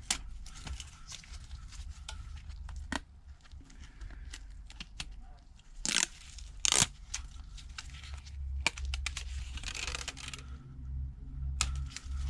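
Plastic film or adhesive liner being peeled off and crinkled, with scattered small clicks and handling noises and two sharper rips about six and seven seconds in, over a low steady hum.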